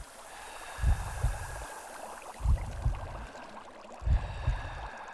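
Slow, deep heartbeat thumps, three beats about a second and a half apart, over a steady hiss of bubbling water.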